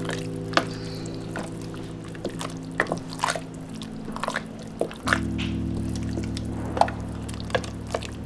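Wooden spoon stirring thick, cheese-sauced elbow macaroni in a stainless-steel pot: irregular wet squelches and sticky clicks. Background music with sustained low notes runs underneath and changes about five seconds in.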